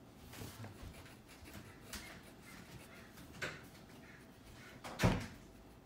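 Wax crayon rubbing on paper in faint scratchy colouring strokes, with a few soft taps and one louder thump about five seconds in.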